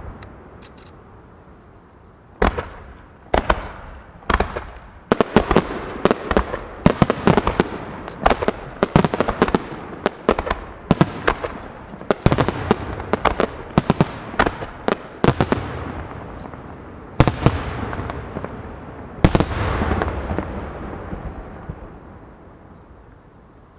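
Aerial fireworks shells bursting in quick succession, many sharp bangs each with a rolling echo, densest in the middle and then trailing off into a fading rumble.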